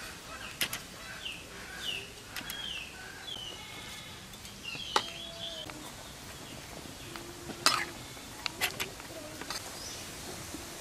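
A metal spatula clinking and knocking against an iron kadai as drumsticks are stirred into a simmering curry, a handful of sharp clinks with the loudest about three-quarters of the way through. A small bird chirps short falling notes over and over during the first few seconds.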